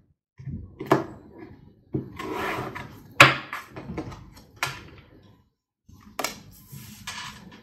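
Deck of tarot cards handled on a tabletop: cards shuffling and sliding against each other, with several sharp taps as the deck is knocked and set down on the table, the loudest about three seconds in.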